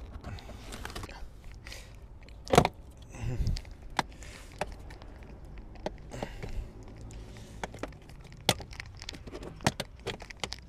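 Scattered clicks and knocks of parts and hand tools being handled while a car's interior is stripped. There is one loud knock about two and a half seconds in and a duller thud just after, then lighter clicks every second or two.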